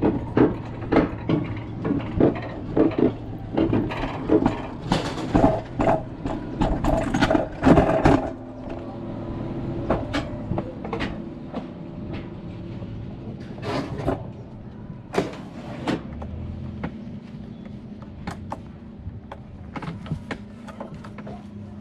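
Summer toboggan (alpine coaster) sled running on its metal track. For the first several seconds its wheels clack rapidly over the track joints, then it settles into a steadier, lower rumble with occasional clicks.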